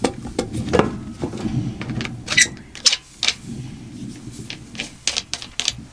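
Irregular clicks, knocks and rustling as yellow polyethylene-coated copper gas tubing is handled and worked by hand, with a sharper knock a little past two seconds in.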